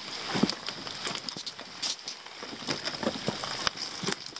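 Footsteps crunching through wet leaves and brush: irregular crackles and snaps of differing loudness, over the hiss and patter of rain.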